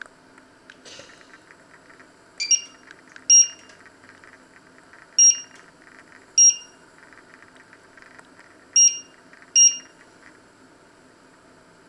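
Induction cooktop's touch-control keys beeping as they are pressed: six short, high beeps at uneven intervals, confirming the power level and timer being set.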